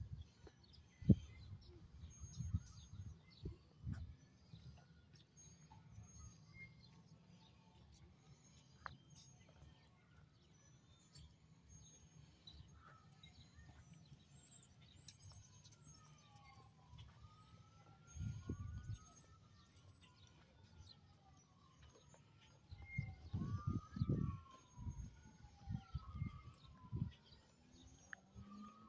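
A faint emergency-vehicle siren wailing, its pitch sweeping slowly up and down; overlapping sweeps begin about halfway in. A few short, high bird chirps and low rumbling bursts on the microphone come in alongside it.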